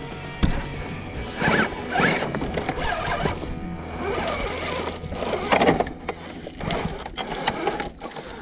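Background music over short, uneven bursts of an RC rock crawler's electric motor and gears whirring, with clicks and scrapes as it crawls over rock.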